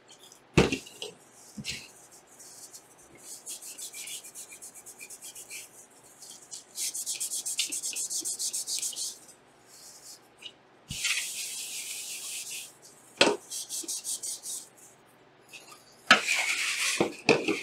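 Paper towel wiped back and forth over graphics-card parts with isopropyl alcohol, in runs of quick rubbing strokes, with a few sharp knocks as parts are handled, the loudest about half a second in and near the end.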